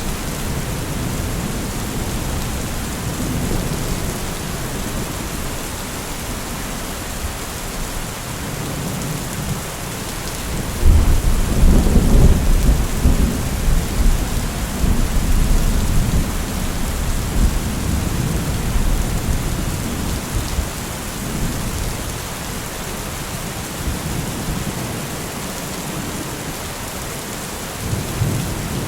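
Steady rain falling, with a thunderclap about eleven seconds in that rumbles on for several seconds before fading back under the rain.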